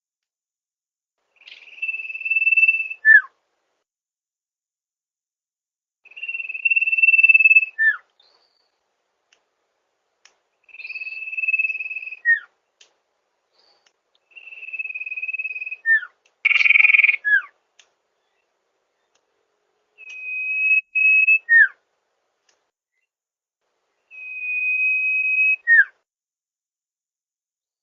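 Sirpu (sirdung) bird song: a steady whistled note held for about a second and a half, then a short note dropping sharply in pitch. The phrase repeats six times, every four to five seconds, with a harsher, louder call near the middle.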